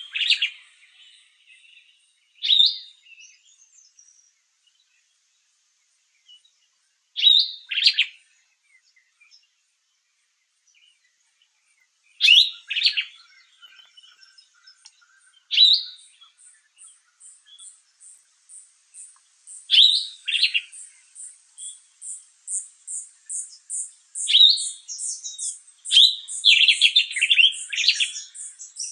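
Sombre greenbul giving loud short calls every few seconds, with a longer run of notes near the end. From about halfway, a rapid series of high thin notes from another small bird runs underneath, about three a second.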